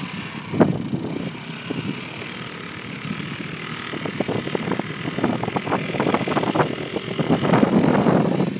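Small Loncin-built Redcat Baja ATV engine running as the quad rides. There is a sharp knock about half a second in, and rough, crackly noise grows louder from about four seconds in.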